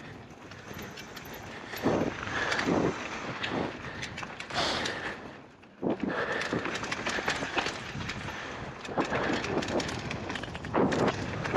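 Polygon Siskiu N9 mountain bike rolling fast down a dirt flow trail: tyres running over the dirt, with the chain and frame rattling over the bumps. Near the middle it goes quiet for a moment, then comes back with a sudden thud.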